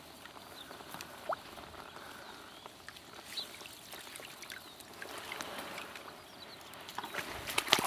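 Stream water sloshing and splashing as a hooked sea-run brown trout is worked into a landing net in the shallows, swelling a few seconds in, with a quick cluster of sharp clicks near the end.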